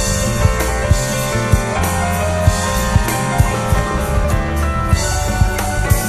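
Live instrumental band music: electric keyboard playing a melody over a drum kit keeping a steady beat.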